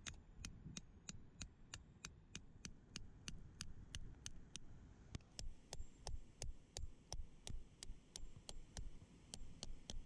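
Claw hammer tapping a thin metal tent peg into stony ground: a steady run of sharp strikes, about three a second.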